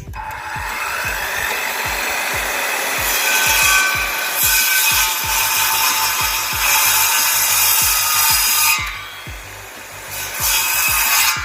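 Electric saw cutting through wooden posts, a long steady cut that stops about nine seconds in and starts again a second and a half later. Music with a steady beat plays underneath.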